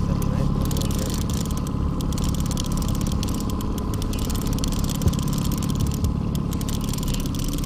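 Boat motor running steadily at trolling speed, a low even hum, with a light knock about five seconds in.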